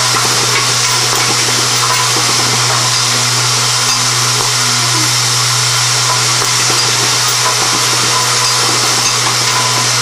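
Automated assembly machine running: the steady low buzz of vibratory bowl feeders, with light rattling and clicking of metal parts and mechanisms over it.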